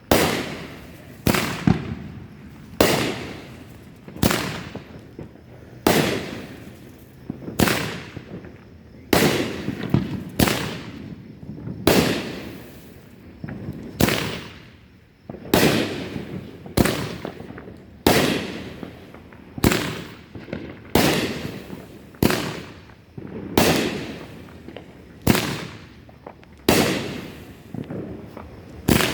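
A 'Play with Fire' consumer firework cake firing its shots one after another, about twenty bangs at a steady pace of roughly one every second and a half, each trailing off with a fading crackle.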